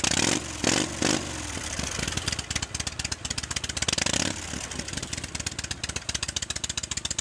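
Vintage military motorcycle engine running just after starting: revved in short blips in the first second and again around four seconds in, then settling into idle with a rapid run of firing pulses.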